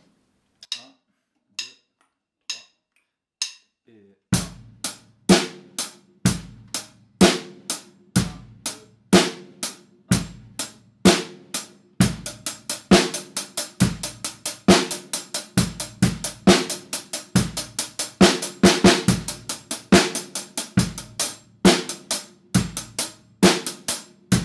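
Four light clicks about a second apart, then an acoustic drum kit playing a straight binary groove of kick drum, snare and hi-hat with the beat split in twos and fours. The pattern gets busier about halfway through.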